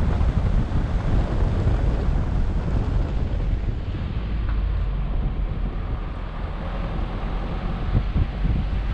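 Wind buffeting an action camera's microphone on the roof of a moving vehicle, a gusty low rumble mixed with road noise as it drives.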